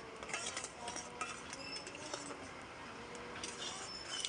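A spoon stirring tamarind chutney in a pan, scraping and clinking against the pan in irregular short clicks as the chutney cooks down to its finish.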